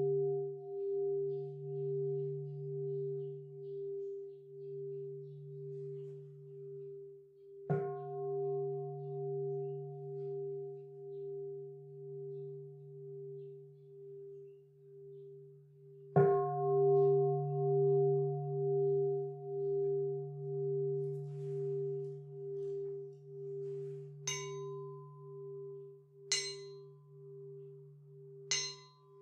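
Buddhist temple bowl bell (rin/keisu) ringing with a pulsing hum as it fades. It is struck again about eight seconds in and once more about sixteen seconds in. Near the end come three quicker, lighter strikes with a brighter, higher ring, as at the opening of a morning service before the sutra chanting.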